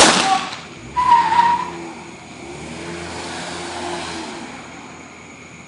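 A gunshot right at the start, the last of a quick string of shots, dying away over a fraction of a second. About a second later comes a short high wavering tone, then a steadier lower drawn-out tone for about two seconds.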